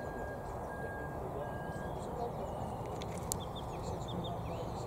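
Small birds chirping and singing, many short calls, over a steady low background noise. One sharp click about three seconds in.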